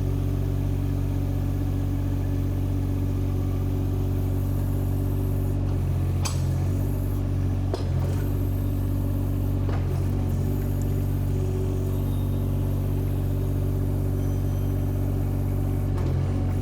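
Compact track excavator engine running steadily, with a few short knocks about six, eight, ten and sixteen seconds in.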